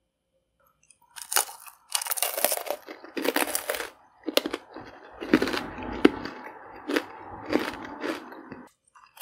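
A thick pretzel rod coated in hardened red candy melts being bitten and chewed: a run of crunches and sharp cracks that starts about a second in and stops shortly before the end.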